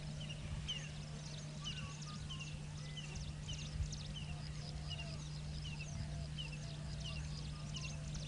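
Several wild birds calling: a short high chirp repeated about every half to three-quarters of a second over other quick high chirps and a few lower calls, with a steady low hum beneath.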